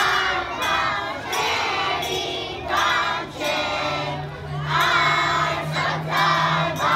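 A crowd of young children shouting together in repeated rhythmic bursts, many voices at once.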